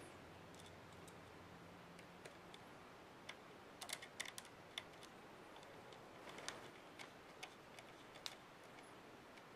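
Faint, light metal ticks and clicks as a precision screwdriver turns small screws into the side of a MacBook Pro's aluminium case. The clicks come in a quick cluster about four seconds in, then singly over the following few seconds.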